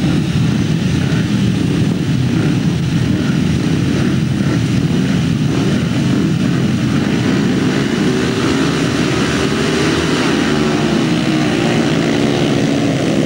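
A field of grasstrack solo motorcycles revving hard together at the start, then accelerating away, the engine note rising in pitch in the second half.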